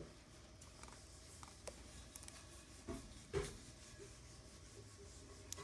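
Faint scrapes and small taps of a hand repair tool working on the Apple Watch's antenna and case, with a sharper knock about three and a half seconds in.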